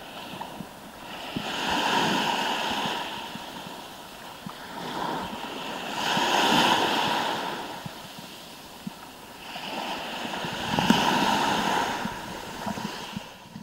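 Small waves breaking and washing up a shore of smooth white pebbles. Three surges come about four and a half seconds apart, each swelling and then fading.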